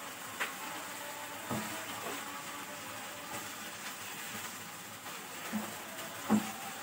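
Chicken pieces sizzling in oil in a nonstick frying pan, stirred with a silicone spatula that knocks against the pan a few times, most sharply about six seconds in.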